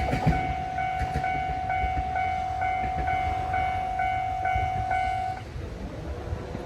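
Japanese railway level-crossing bell ringing its repeated ding about twice a second, stopping about five seconds in as the crossing clears. Under it, the low rumble of the HB-E300 series hybrid train fades away.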